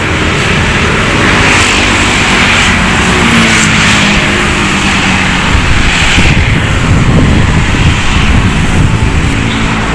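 Road traffic passing close by: a steady, loud rumble of vehicle engines and tyre noise.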